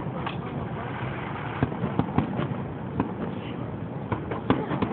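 Aerial firework shells bursting: a run of irregular sharp bangs, about eight in a few seconds, some in quick pairs. Heard through a phone's microphone.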